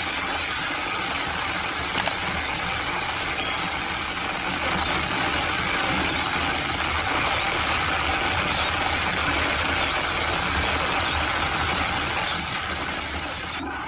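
Rain and the running noise of a vehicle driving on a wet road, heard from inside the vehicle: a steady hiss over a low rumble, with one sharp click about two seconds in.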